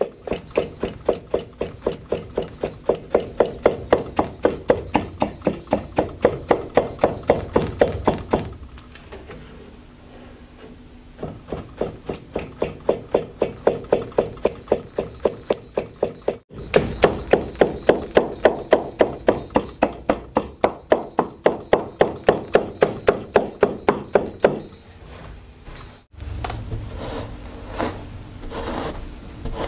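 A carpet weaver's beating comb striking the weft down between the warp threads of a hand-knotted carpet on an upright loom, in a fast, even run of about four to five strokes a second. The strokes stop for about three seconds and again briefly later, and softer rubbing and tugging sounds follow near the end.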